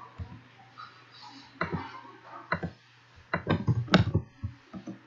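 Computer keyboard typing: scattered keystrokes with a quicker run of them a little over three seconds in, over a faint low steady hum.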